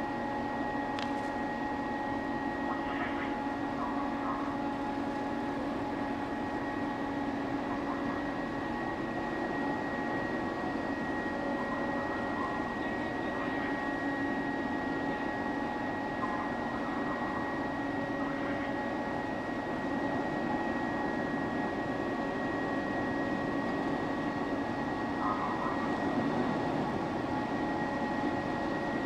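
Steady machinery hum from a 225 m ro-ro passenger ferry lying alongside the quay while docking, several steady tones over an even drone.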